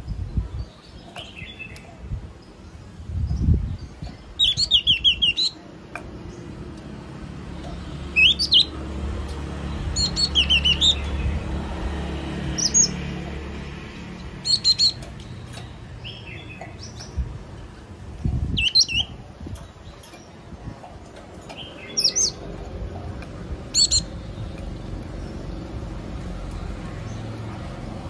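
Yellow-cheeked tit calling: short phrases of rapid high notes, repeated every couple of seconds. A low rumble swells underneath around the middle.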